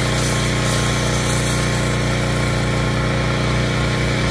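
Pressure washer running steadily with a foam cannon spraying soap: a constant engine hum under the hiss of the spray.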